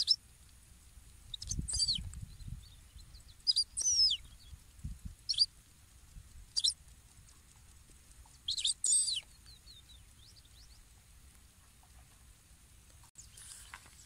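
European goldfinch calling: short bursts of bright, twittering chirps, about six of them a second or two apart, falling silent for the last few seconds.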